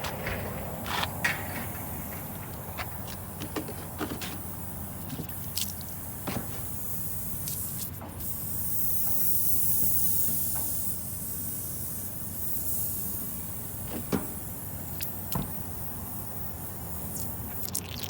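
Soapy water sprayed onto a punctured tubeless tire to find the leak: a hiss of spraying, strongest about halfway through, with scattered clicks and knocks of handling over a steady low rumble.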